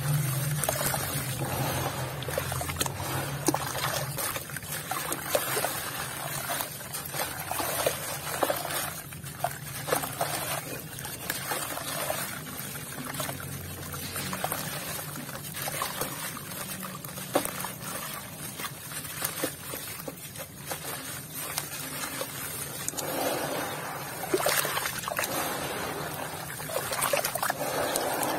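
Lumps of grainy red dirt crumbling in the hands and pattering and trickling into a tub of water, with irregular crunchy crackles. Near the end the hands slosh through the muddy water.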